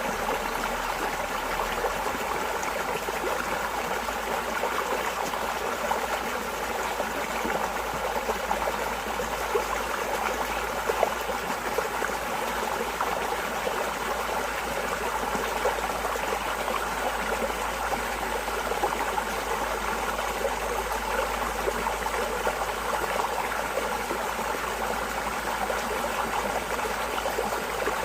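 Water flowing steadily with a constant trickling, splashing babble, like a small stream, unchanging throughout.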